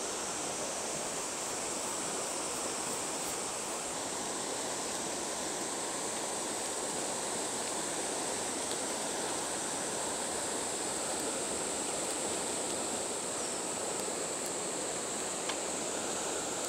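River water running steadily, the stream high and fast from the previous days' rain. A steady high-pitched hum sits above the rushing water.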